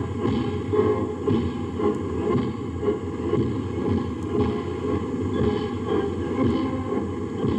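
Column of tanks rumbling past in a parade: a dense, rough low rumble of engines and tracks, with fainter clanks roughly twice a second.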